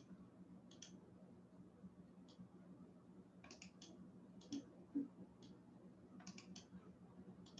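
Computer mouse clicking: scattered single clicks and short quick runs of clicks over a faint steady hum, with two soft knocks about four and a half and five seconds in.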